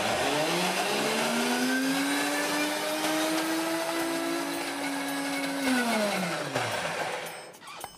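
High-speed blender puréeing mango flesh. The motor spins up just after the start, runs with a steady whine for about six seconds, then winds down and stops near the end.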